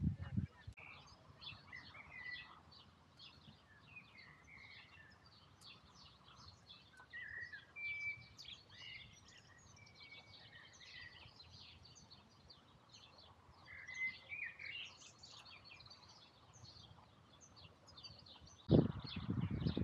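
Many small birds chirping and singing in the trees, quick high chirps mixed with a few short whistled notes. Near the end a louder, lower rushing noise comes in.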